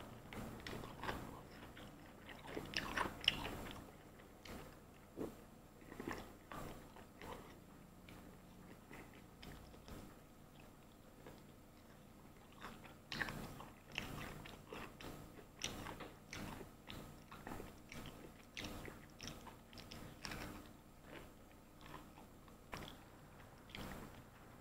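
A person eating a KFC fried chicken meal close to the microphone: quiet, irregular bites and chewing with occasional crunches, the loudest cluster about three seconds in.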